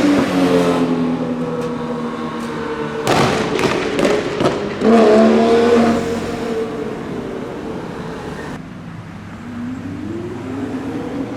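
Sports car engine under hard acceleration, its pitch falling, then a cluster of sharp cracks about three seconds in, followed by a short rising rev. The engine note then fades and rises again near the end.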